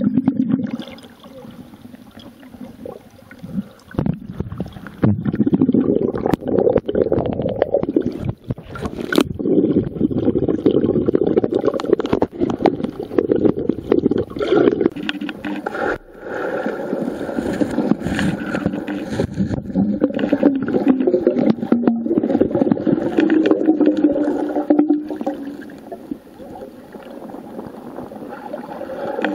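Muffled underwater sloshing and gurgling of water moving around a submerged waterproof camera, heard through its own microphone, with many small knocks and scrapes from the camera body being handled.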